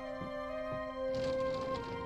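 Soft cartoon background music of slow held notes. About a second in, a light hiss joins as a tall sliding window is pushed open.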